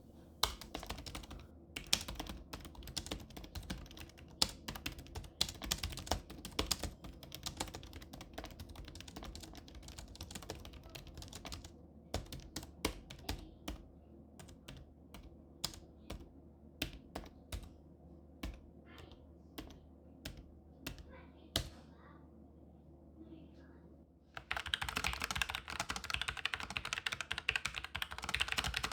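Typing on Logitech computer keyboards, the K780 low-profile and the MX Mechanical Mini: a run of keystroke clicks that thins out to single taps, a short pause, then fast, louder, denser clatter for the last few seconds.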